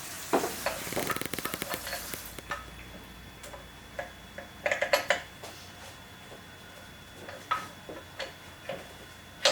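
Small metal clicks and clinks of hand tools and sewing-machine parts being handled. A fast run of fine ticks over a hiss comes in the first two seconds, then scattered single clicks, with a short cluster about five seconds in.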